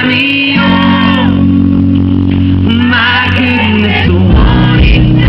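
A live pop band plays while a voice sings, with held low bass notes underneath. About four seconds in, a heavier bass-and-drum beat comes in.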